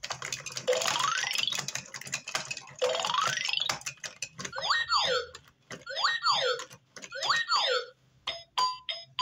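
VTech Learn and Dance Interactive Zoo baby toy playing electronic sound effects through its small speaker: two rising whistle-like glides, then three springy swooping boing sounds about a second apart, with rapid clicking throughout.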